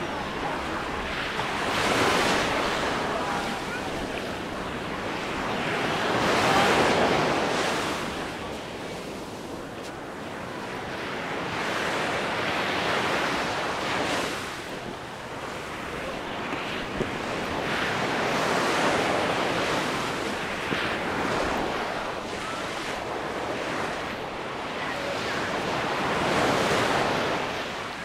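Small Mediterranean waves breaking and washing up a sandy beach, the surf swelling and fading about every six seconds.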